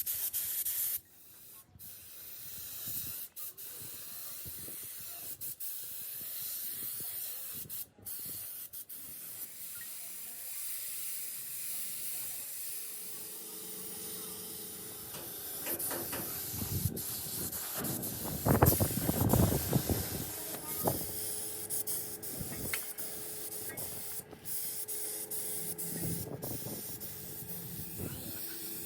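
A steady spraying hiss. About halfway through, a steady low hum joins it, and shortly after comes a louder stretch of rough, uneven noise.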